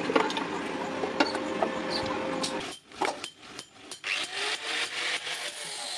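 Stick (arc) welder crackling and sizzling as it welds steel rod, with a steady hum beneath it; the crackle cuts off about two and a half seconds in. A few sharp clicks follow, then a scratchy rasping noise near the end.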